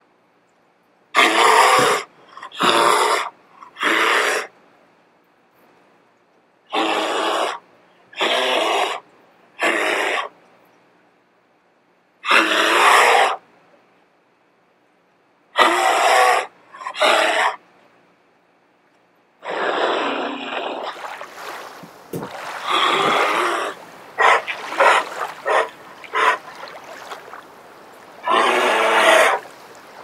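Black bear huffing: loud, breathy bursts about a second long, coming in groups of two or three with pauses between. From about twenty seconds in, water splashing runs on under further huffs.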